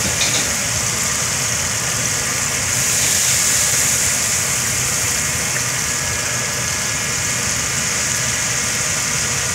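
Steady low machine hum under a constant high hiss, unchanging throughout.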